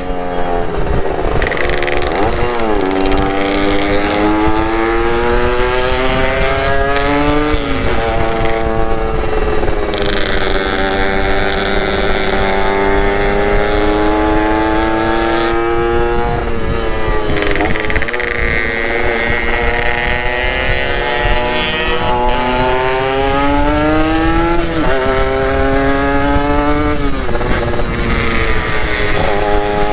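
Two-stroke motorcycle engine under way, its pitch climbing steadily as it pulls and dropping sharply at each gear change, several times over. A haze of wind and road noise lies under it.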